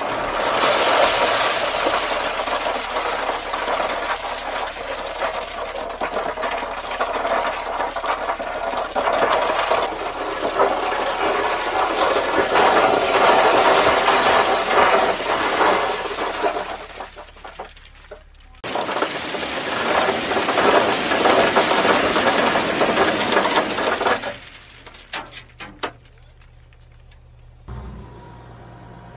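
Crushed limestone pouring and sliding out of a tipped dump truck bed: a long, loud clattering rush of stones that breaks off briefly and comes back, then dies away into a few scattered clicks. Near the end a diesel engine starts to be heard idling low and steady.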